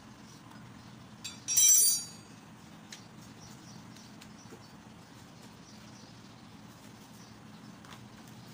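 Metal hand tools set down on a workbench: a short clattering clink with a bright metallic ring about one and a half seconds in, then a couple of light ticks. A faint steady low hum runs underneath.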